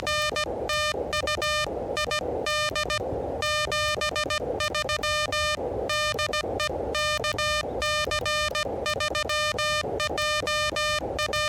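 Morse code (CW) from an Elecraft KH1 transceiver: a single steady tone keyed on and off in dots and dashes at about 16 words per minute, with receiver hiss between the characters.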